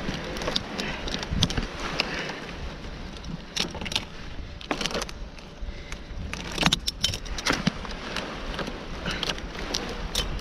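Palm fronds rustling and metal climbing hardware clinking as gloved hands wrap a rope sling around the fronds, with many irregular sharp clicks over a low rumble of wind on the microphone.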